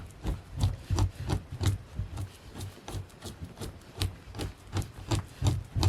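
Hand scraper working an animal hide in rapid, regular strokes, about three a second: a rubbing scrape with a dull thud on each pass as flesh and membrane are scraped off.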